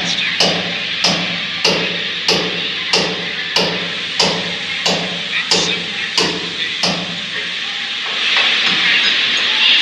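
N700-series Shinkansen bullet train pulling slowly into the platform: a regular clicking, about three clicks every two seconds, slows and stops about seven seconds in, then a hiss swells as the train comes to a halt.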